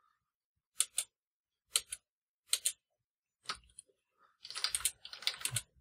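Computer keyboard keystrokes: a few separate key presses about once a second, then a quick run of typing near the end.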